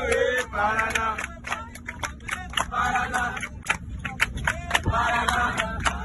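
A group of young people singing and chanting together in phrases, with irregular hand clapping. Inside a coach, over a low steady hum.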